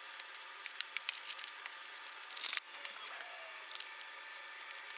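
Faint handling noise: small clicks and rubbery squishes as a wire is pressed into a truck door's rubber weather strip, with a slightly louder crackle about halfway through, over a steady hiss.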